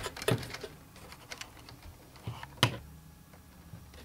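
A few light clicks and taps of fingers handling the metal drive bracket and cables inside an open vintage PC case, the sharpest a quarter second in and a little past halfway, over a faint steady low hum.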